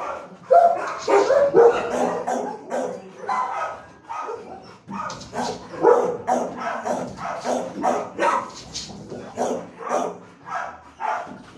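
Dog barking over and over, about two or three barks a second, with a short lull about four seconds in.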